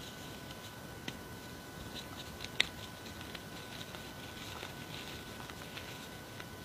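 Hands squeezing and working loose powdered gym chalk: a faint steady crumbling rustle with scattered small clicks, one sharper click about two and a half seconds in.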